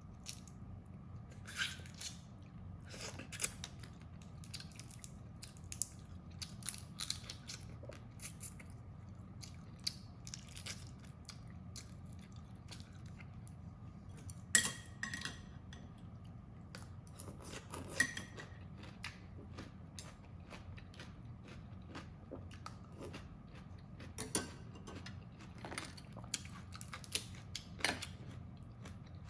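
Crab shells being bitten and cracked while eating, with irregular sharp cracks, crunches and chewing. The loudest crack comes about halfway through.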